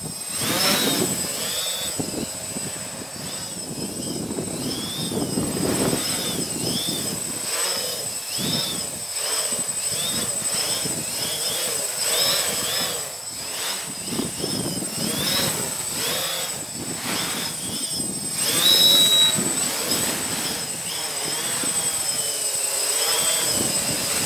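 Multicopter's electric motors and propellers whining, the pitch rising and falling about once a second as the ArduCopter flight controller corrects against strong gusts, with wind rumbling on the microphone.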